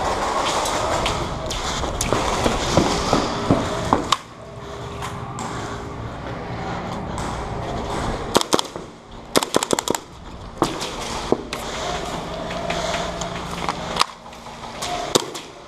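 Airsoft guns firing: scattered single shots, and about nine seconds in a rapid full-auto burst of around eight shots.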